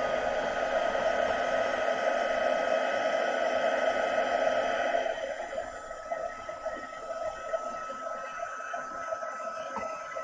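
Heat embossing gun running, a steady rush of hot air with a constant fan whine, melting gold embossing powder on a stamped card. The rush of air drops to a quieter level about halfway through while the whine carries on.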